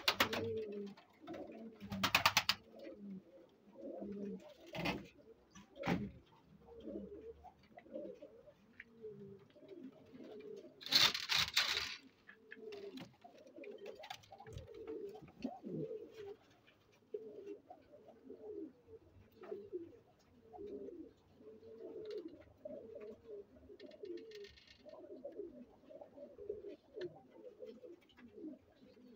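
Pakistani flying pigeons cooing over and over, low throaty coos one after another. A few brief, louder rustling noises cut in, the loudest about eleven seconds in.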